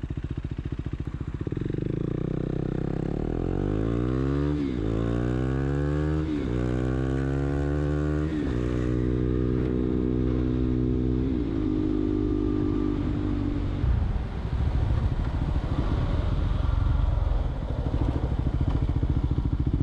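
KTM Duke 390's single-cylinder engine idling, then pulling away and revving up through the gears, its pitch climbing and dropping back at three upshifts before settling to a steady cruise. About fourteen seconds in the throttle closes, and the engine note sinks under a rush of wind and road noise as the bike slows.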